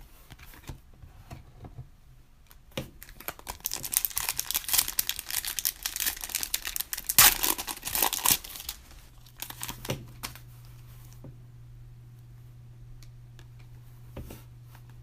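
A foil trading-card pack wrapper being torn open and crinkled: a dense, crackly rustle for several seconds in the middle, with scattered clicks before it.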